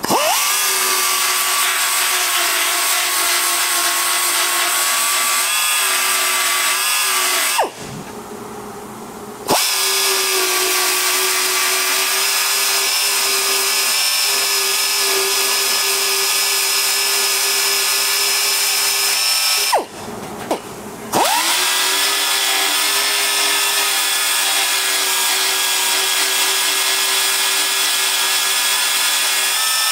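Dynabrade mini belt sander with a Norton Blaze abrasive belt grinding down a weld seam on thin sheet-metal body panel. It runs steadily in three long stretches, its pitch dropping as it winds down in two short pauses, about 8 and 20 seconds in, and rising again as it restarts.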